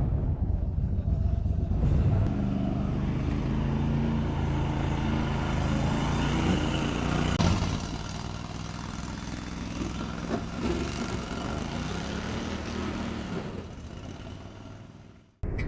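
A vehicle engine running steadily, dying away near the end before the sound cuts off abruptly.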